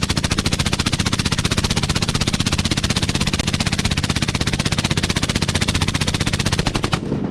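M240B 7.62×51mm machine gun firing one long, continuous full-auto burst through a Dead Air Sandman S suppressor, with shots coming in a rapid, even stream. The burst stops near the end.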